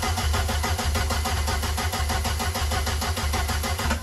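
Vauxhall C20LET 2.0 turbocharged four-cylinder engine cranking on its starter motor with an even pulsing rhythm, turning over without firing, then cut off abruptly. The coil HT leads are on the wrong way round.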